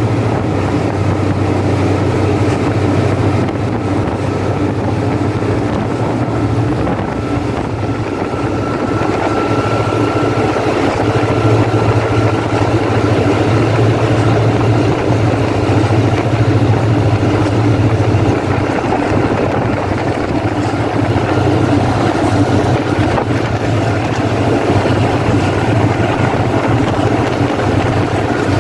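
Diesel locomotive D.4532's engine running steadily under power while the train moves, a loud low drone with wind rushing over the microphone.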